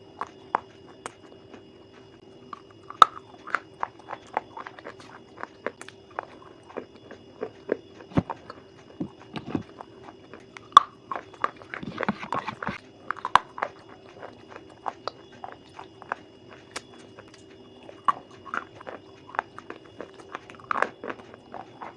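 An animal chewing something crunchy: irregular sharp crunches and clicks, with a denser flurry about halfway through.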